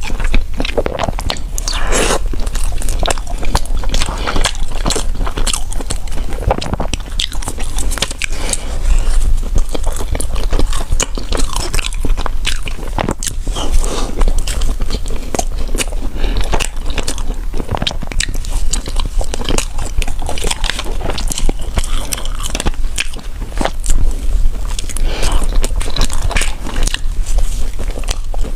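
Close-miked mouth sounds of a person biting and chewing food: a continuous run of wet clicks and crunches, over a steady low hum.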